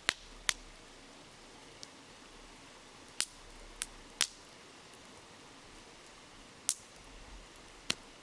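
Wood campfire crackling, with sharp irregular pops about once a second, over the steady hiss of a flowing river.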